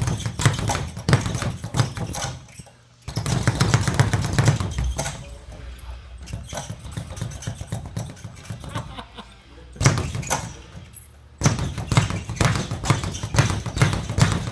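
Speed bag being punched rapidly, rebounding off its wooden platform in a fast, rhythmic rattle of hits. The rhythm breaks off briefly about three seconds in, runs softer through the middle, then comes back loud about two-thirds of the way through.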